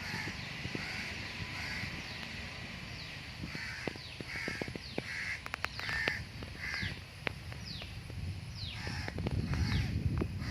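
Birds calling outdoors: a run of short calls repeated about every half second to second, mixed with calls that slide downward in pitch, over a steady low background with a few sharp clicks.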